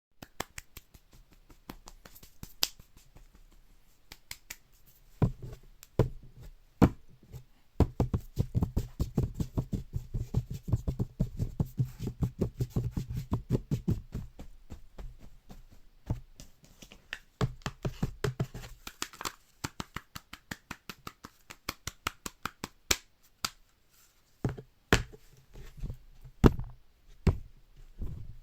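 Home-performed sound effects made of quick clicks and taps. A dense run of rapid, rhythmic low knocks lasts from about five to fourteen seconds in, and a few sharper, louder knocks come near the end.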